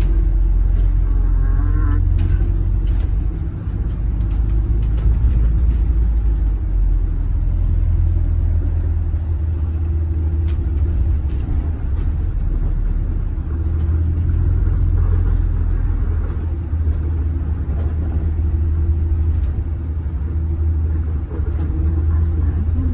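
A moving bus heard from inside the passenger cabin: engine and road noise make a steady low rumble, with a few light clicks and rattles.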